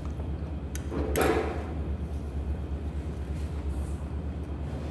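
A plastic fork set down with a short clatter against a plate about a second in, over a steady low hum.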